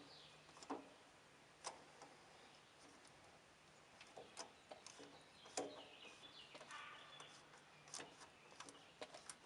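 Faint, irregular clicks and taps of hand tools being worked at the lawn tractor's oil filter, about one every second or so. Birds chirp faintly in the background.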